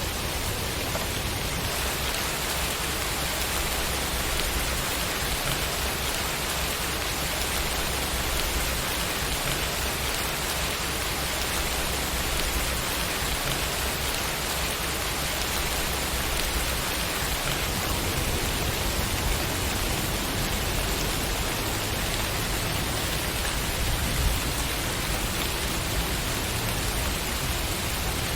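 Steady rainfall, a dense even hiss of raindrops with an occasional single louder drop.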